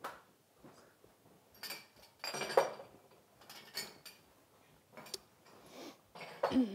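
Café crockery and cutlery clinking and clattering: several separate knocks and rattles of cups, saucers and spoons. Near the end comes a short, loud sound that falls in pitch.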